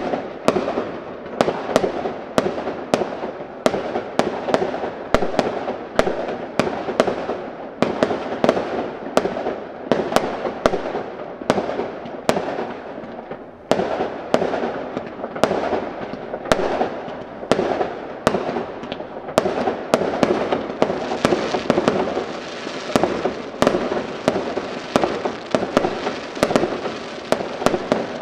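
Aerial firework shells bursting in quick succession, about two to three bangs a second, each trailing off in a short echo. From about two-thirds of the way through, a dense crackling from crackle-effect stars joins the bangs.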